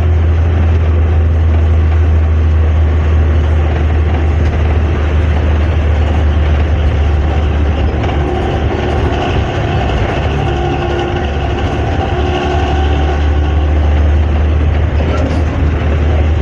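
Hino AK3-HR bus's diesel engine and exhaust droning under way, heard from the rear seats, with a strong steady low rumble that eases slightly about two-thirds of the way through.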